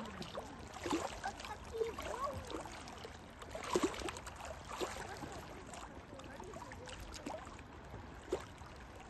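Small waves lapping and splashing at the water's edge, with irregular light slaps and clicks.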